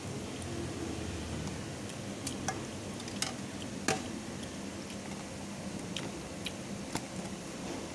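Eating sounds: fried noodles being chewed, with a few sharp clicks of wooden chopsticks against a metal tray scattered through, over a steady low hum.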